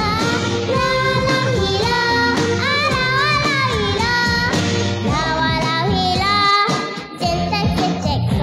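A young girl singing a Chinese-dialect pop song into a microphone over a backing track, with a woman's voice singing along. The backing thins out briefly about seven seconds in.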